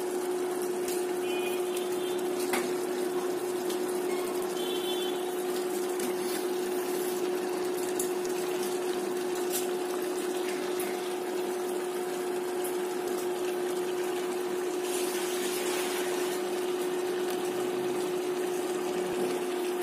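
A steady motor hum with an even hiss under it and a few faint clicks.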